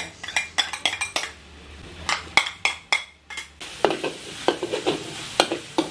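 Metal spatula scraping and clacking against a steel wok as chopped garlic and onion are stirred in hot oil, with a frying sizzle that comes up about halfway through.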